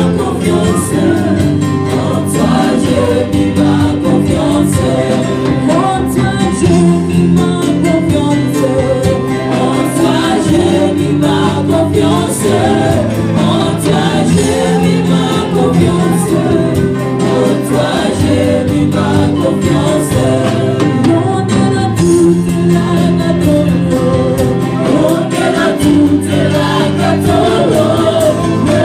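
Amplified gospel worship singing: a choir and lead singers on microphones, with electric keyboard accompaniment under held bass notes.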